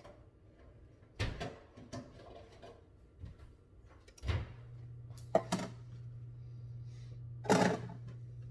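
Knife chopping peeled potatoes on a cutting board: irregular sharp knocks, the loudest near the end. A low steady hum comes in about four seconds in.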